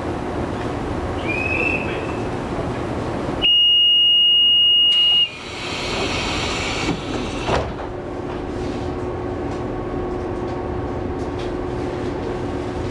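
Running sound of an EMU700 electric multiple unit heard from inside the carriage: a steady rumble of wheels on rail. About three and a half seconds in, a loud high-pitched steady beep sounds for nearly two seconds, and a steady hum comes up a few seconds later.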